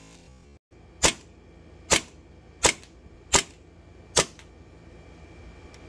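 WE T-Rex Hi-Capa 5.1 gas blowback airsoft pistol firing five single shots, each a sharp report with the slide cycling, a little under a second apart. The last shot comes about four seconds in. The pistol is fitted with 150% recoil and hammer springs.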